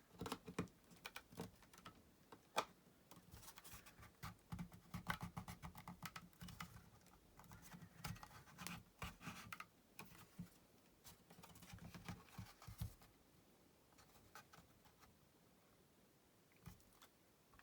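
Faint, scattered clicks, taps and scratches of hands handling and working at the plastic case of an H96 Max V56 Android TV box to get it open; they thin out in the last few seconds.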